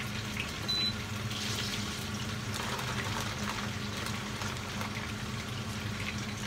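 Potato fries deep-frying in a pot of oil: a steady sizzle with scattered small crackles, the oil too hot by the cook's own account. A steady low hum runs underneath.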